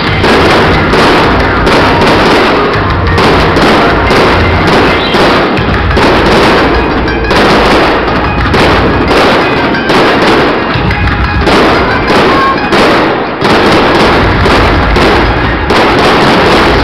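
Aerial fireworks display: a dense, continuous barrage of shell bursts and crackling, with no pauses.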